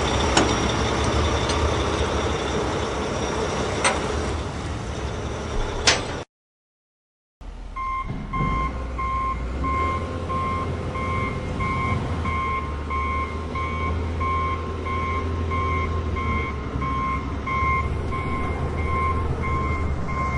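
Small electric motor of a battery-powered toy tractor running, with a few clicks. After a short cut, the toy loader gives a steady reversing-alarm-style electronic beep, repeating evenly over a low motor hum.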